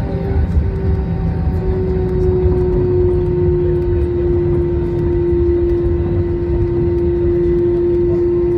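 Airbus A320 cabin noise during the landing rollout: a steady low rumble of wheels and airflow, with an engine tone that wavers at first, then holds steady from about a second and a half in, sinking slightly.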